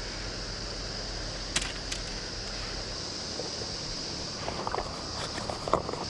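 Steady rush of a flowing mountain river, with insects droning in a high band over it. Two sharp clicks come about a second and a half in, and a few faint short sounds come near the end.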